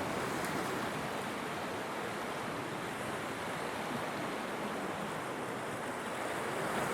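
Ocean surf washing steadily, with wind.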